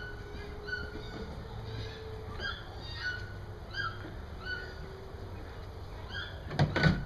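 Short, high chirping calls repeating about once or twice a second, an animal or bird calling, over a faint steady hum. Near the end a few loud knocks or clatters break in.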